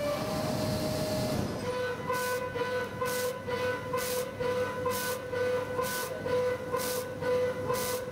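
CNC machining centre milling grey cast iron with a 42 mm screw-in milling cutter: a steady spindle whine that drops slightly in pitch about a second and a half in, then a hissing cutting burst about once a second.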